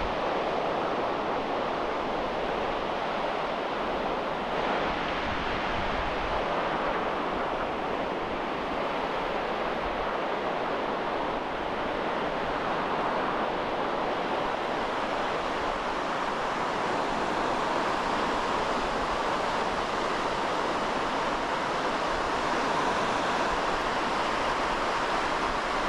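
Small surf breaking on a shallow, flat sandy beach: a steady, even wash of waves.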